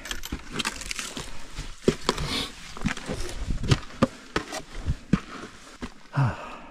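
A hiker's footsteps on a slick, steep mountain trail: irregular steps and scuffs, with breathing between them and a short vocal sound about six seconds in.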